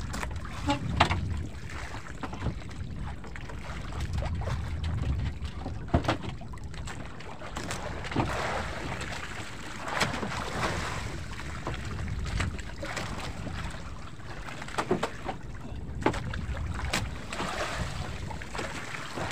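Sea water sloshing against a drifting wooden outrigger boat's hull, with wind on the microphone, broken by scattered sharp knocks and clatters of gear being handled inside the wooden hull.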